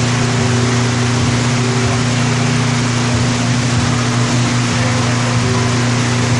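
Steady loud drone of large electric fans running: a constant low motor hum under a wide rushing of air.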